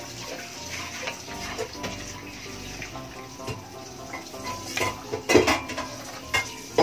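Wooden spoon stirring noodles and broth in a stainless steel pot, the liquid sloshing, with a few loud knocks of the spoon against the pot about five seconds in. Background music plays underneath.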